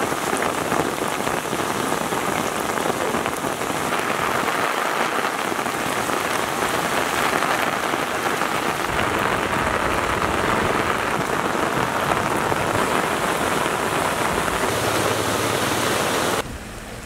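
Heavy rain falling steadily on floodwater and wet ground, a dense even hiss with no pauses. It drops suddenly in level shortly before the end.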